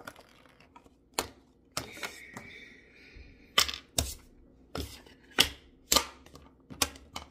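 Handling noise close to the microphone: about a dozen irregular sharp clicks and taps, with a brief light rustle about two seconds in.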